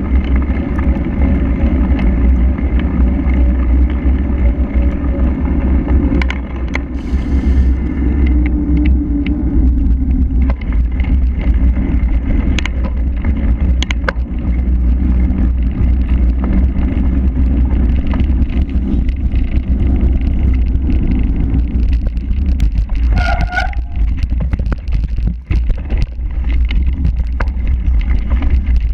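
Heavy wind rumble on a bike-mounted action camera's microphone as a cyclocross bike is ridden at race speed, with frequent clatters and knocks from the bike jolting over paving and rough ground. A brief higher pitched sound about three-quarters through.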